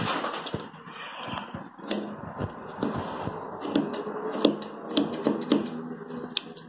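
Grooming scissors snipping the fur around a cocker spaniel's paw: a quick run of short, sharp clicks.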